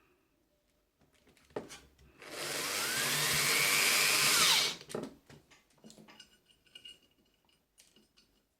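Power screwdriver driving a screw into a home theatre cabinet's back panel: one run of about two and a half seconds, its pitch rising and then dropping as the screw goes in. A few clicks and knocks of handling come before and after.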